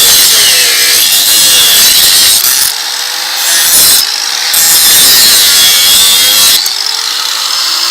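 Kawasaki 4.5-inch angle grinder cutting through a rusted steel bolt: a loud, harsh grinding hiss. It eases off briefly twice, about three and four seconds in, and drops to a lower level after about six and a half seconds.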